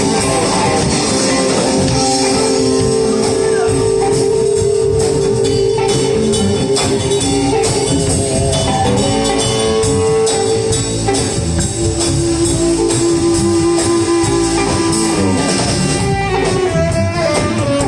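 Live blues band playing an instrumental passage: drums, bass and electric guitar under a lead instrument holding long notes.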